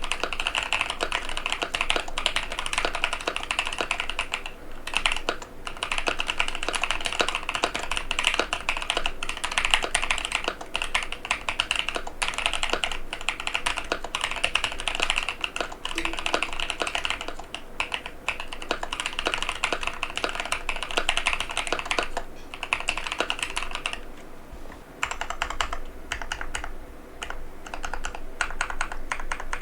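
Fast, continuous typing on a tenkeyless mechanical keyboard with Durock White Lotus linear switches and PBT Cherry-profile keycaps, a dense run of key clacks with brief pauses about five seconds in and again near the end.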